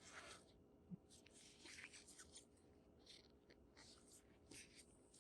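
Faint scraping and rustling of hands handling a phone and its cardboard packaging, in short strokes with a soft knock about a second in.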